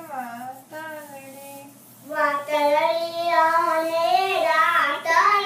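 A young boy singing a Gujarati Swaminarayan kirtan (devotional song). He sings softly at first, then much louder with long held notes from about two seconds in.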